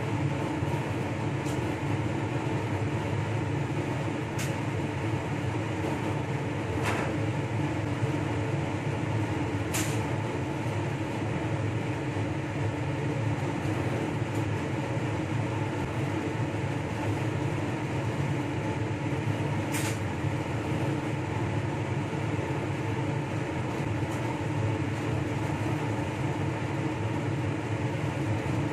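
Steady machine hum of a blower or fan running, with a few faint light ticks of small metal tools being handled.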